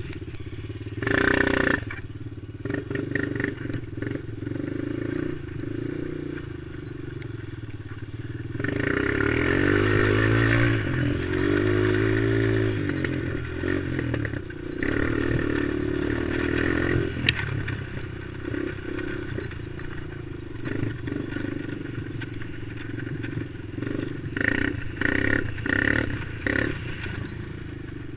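Quad (ATV) engine running as it is ridden over sand, the revs rising and falling, with a long climb in revs about ten seconds in and several short throttle blips near the end. Clicks and knocks from the machine over rough ground.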